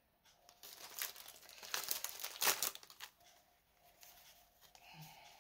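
Plastic packaging and a stamped cross-stitch canvas crinkling and rustling as they are handled and unfolded, with a few sharper crackles, for about three seconds before it goes quieter.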